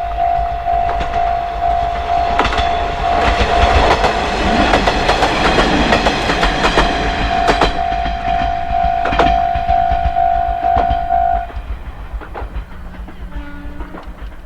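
Japanese level-crossing alarm ringing its repeated electronic "kan kan" tone while a train runs over the crossing, its wheels clacking on the rail joints. The alarm cuts off about eleven seconds in as the train clears, and the train noise fades.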